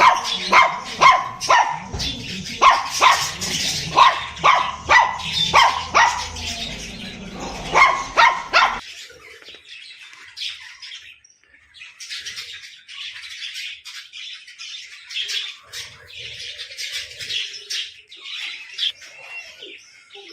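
Loud, sharp, pitched calls repeating about twice a second, which cut off abruptly about nine seconds in. Then softer, high chirping and twittering of small birds.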